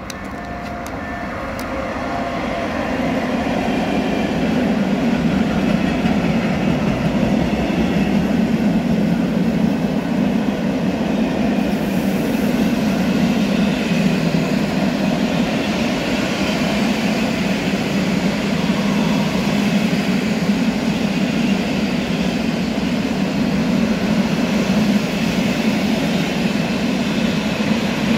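Freight train hauled by the electric locomotive 111Ed-013 passing close by, its wheels running on the rails. The sound grows louder over the first few seconds as the locomotive approaches, then holds steady as a long line of open freight wagons rolls past.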